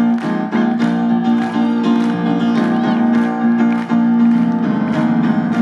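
Instrumental music with a steady beat of about two strokes a second over held notes.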